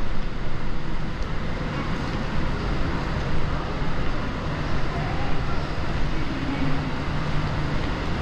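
Steady ambient background noise of a busy indoor public space, heavy at the low end, with faint distant voices now and then.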